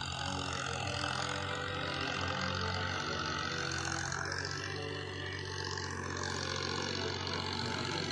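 Tractor diesel engine running steadily at a distance as it works down a row between the orchard trees.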